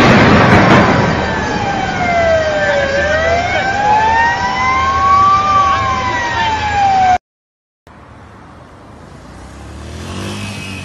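Emergency siren wailing in slow falling and rising sweeps, over the loud noise left by an explosion at a burning industrial plant, which fades over the first couple of seconds. The sound cuts off abruptly about seven seconds in, followed by faint street noise.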